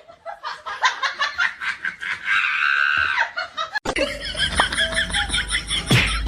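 Person laughing in quick, repeated bursts. It cuts off abruptly just before four seconds in, and more laughing follows over a low hum.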